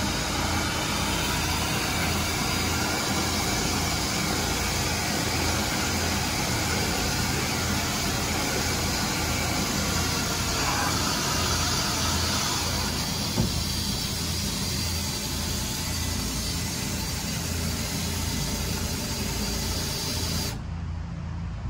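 Battery-powered leaf blower running steadily, a rushing hiss of air as it blows dust off the overhead feed lines and fixtures. It cuts off about twenty seconds in, leaving a low steady hum.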